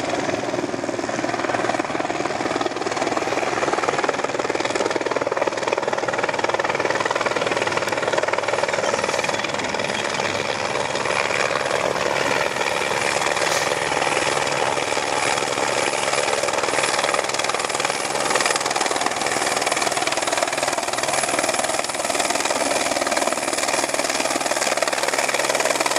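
Eurocopter AS350 Écureuil single-engine turbine helicopter approaching to land, its rotor and turbine running steadily. It grows louder over the first couple of seconds, then holds close and loud.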